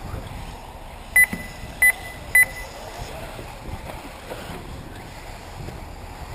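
Three short, high electronic beeps about two-thirds of a second apart, a second or so in, from a race lap-counting system's beeper as buggies cross the timing line.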